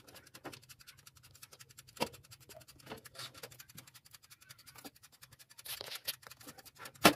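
Small electric oven being switched on and handled: a faint, fast, even ticking runs throughout, with a sharp click about two seconds in and a louder knock near the end.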